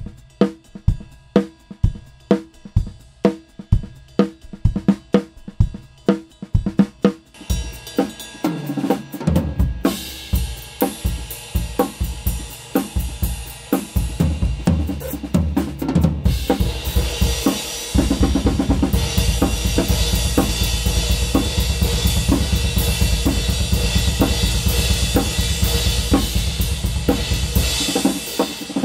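Acoustic drum kit played live and unprocessed: spaced single kick and snare strokes, about two a second, then from about seven seconds in a busier groove with cymbals that gets denser and louder. The first part is picked up by close kick and snare microphones, the rest only by a handheld recorder's built-in condenser mics in a Y pattern.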